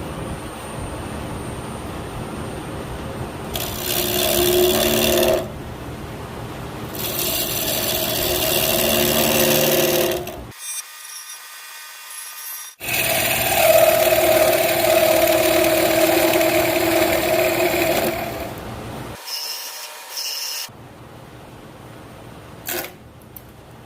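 Wood lathe turning a Cipo mahogany blank, with a turning tool cutting into the spinning wood in three loud passes separated by short breaks. A single sharp click comes near the end.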